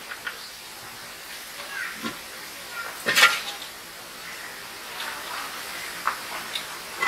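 A metal serving spoon clatters and scrapes against a cooking pan about three seconds in, the loudest sound, among scattered light clinks of eating from steel plates.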